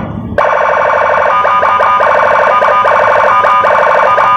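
Custom Senken police-escort siren on a motorcycle, sounding loudly after a brief pause. A steady, buzzy electronic tone starts about half a second in, and a second, warbling tone is layered over it from about a second in.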